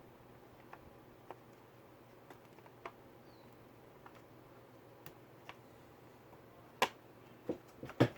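Sparse, irregular light clicks and taps, with a few louder sharp clicks near the end, from handling a laptop and its parts.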